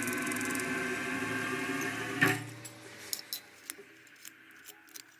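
A machine tool running with a steady hum, then a loud knock about two seconds in as it shuts down and the hum dies away, followed by scattered light metallic clicks and ticks.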